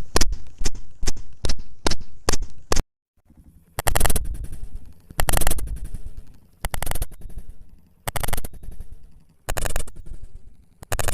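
Balloon pop sound effects: a quick run of about eight sharp pops in the first three seconds, then after a short pause, fuller pops with a brief tail, one about every second and a half.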